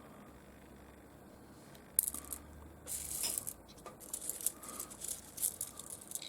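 Small pieces of rough seam opal clicking and clattering as they are shuffled and picked through by hand, starting with a sharp click about two seconds in and going on as irregular light knocks and rustling.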